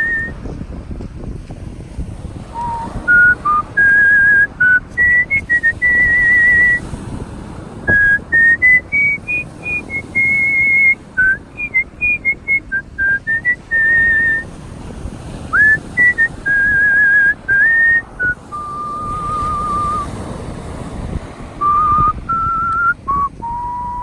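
A person whistling a melody, single clear notes stepping up and down in phrases, with a wavering vibrato on the long held notes. A steady rushing noise runs underneath.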